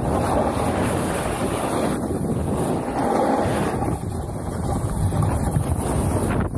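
Wind buffeting the camera's microphone, mixed with the hiss and scrape of a snowboard's edge carving over packed snow at speed.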